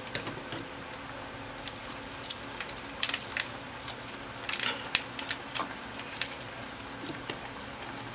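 Irregular light clicks and taps over a steady low hum, with small clusters of clicks about three and five seconds in.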